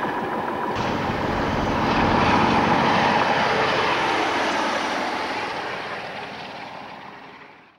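A British Rail Class 47 diesel locomotive (47626) running light, passing at speed with its Sulzer diesel engine running. The sound swells to its loudest about two to three seconds in, then fades steadily as the locomotive draws away. Just before, briefly, the tail of a previous train clicks over the rail joints.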